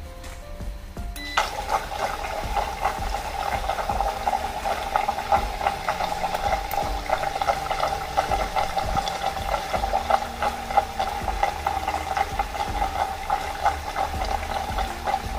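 Sous vide immersion circulator switching on about a second in, then steadily churning and bubbling the water in the pot with its pump while it heats toward the set temperature.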